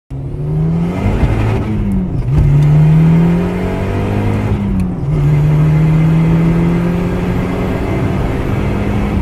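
Car engine revving: the pitch rises and falls a few times in the first five seconds, then holds a steady, slightly climbing note before cutting off abruptly.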